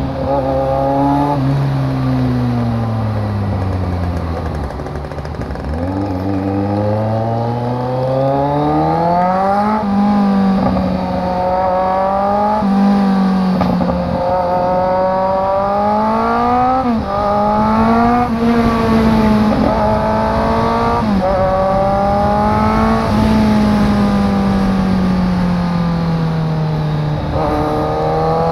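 Kawasaki Z900's inline-four engine, straight-piped with no catalytic converter, breadbox or muffler, heard on board while riding. The revs fall off, then climb through several gear changes, the pitch rising and dropping sharply at each shift, settle to a steady cruise and pick up again near the end.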